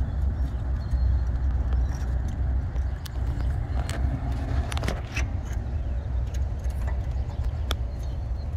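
Scattered light clicks and taps of a hand and metal parts as a diesel fuel injector is worked back down into its bore, over a steady low rumble.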